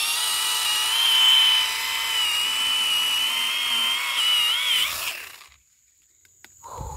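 Modern M58 cordless mini chainsaw running at a steady high whine as its chain cuts into a tree trunk, then stopping about five seconds in.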